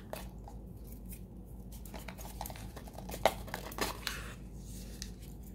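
A small cardboard jewellery box being handled and its lid worked off: light scrapes and rustles, with a sharp click a little past halfway.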